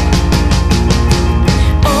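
Background music: a song with a quick, steady beat, playing without singing until a held sung note comes in near the end.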